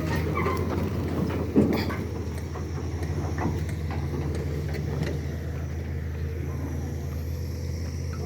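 A motor runs with a steady low hum, with scattered short knocks and one sharper knock about a second and a half in.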